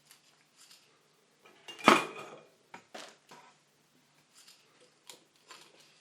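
Small clicks and knocks of tools and a circuit board being handled on a soldering bench, with one louder metallic clink, briefly ringing, about two seconds in.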